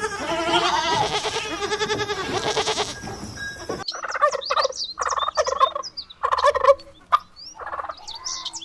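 An animal bleating with a wavering, quavering voice. After a sudden cut about four seconds in, a turkey gobbles in several short rattling bursts.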